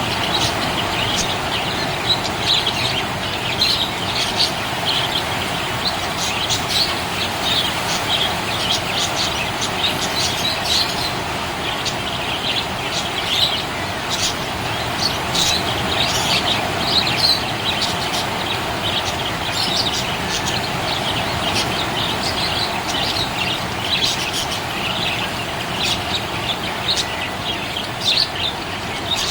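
Budgerigar chirping and warbling in a quick, continuous stream of short high chirps, over a steady background noise.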